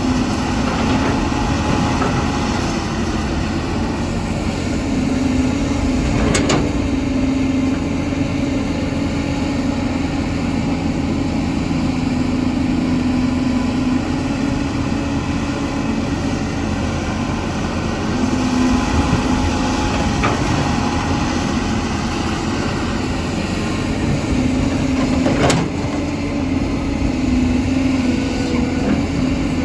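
CAT 320 hydraulic excavator's diesel engine running steadily at working speed. Two sharp knocks stand out, one about six seconds in and one about twenty-five seconds in.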